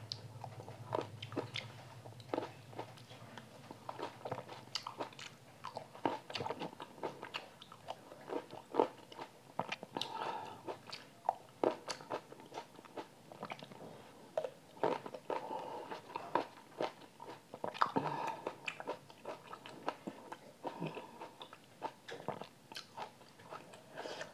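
Close-miked biting and chewing of black grapes pulled from a bunch: a dense run of short crunches and clicks, some louder bites standing out.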